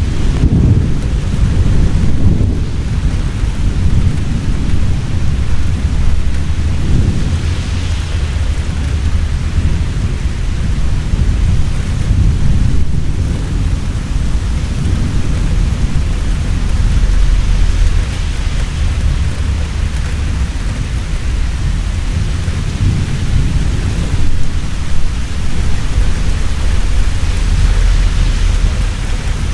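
Heavy rain falling steadily, with deep rolling thunder rumbling under it, the rumbles swelling and fading several times.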